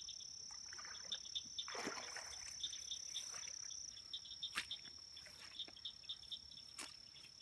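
Chorus of calling frogs and insects: a steady high trill with groups of rapid short chirps repeating beneath it. About two seconds in there is a brief rushing splash, and a few sharp clicks come later.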